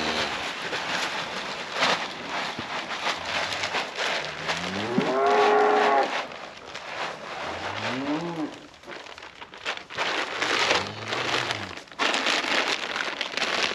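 Beef cows mooing at feeding time: one long call that rises and holds about three seconds in, then two shorter rising-and-falling moos near eight and eleven seconds, over a steady crackling noise.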